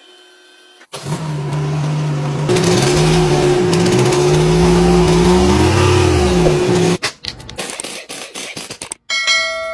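A vehicle engine revving, its pitch rising and falling over a steady whine, starting about a second in and cutting off after about six seconds. A scatter of clicks follows.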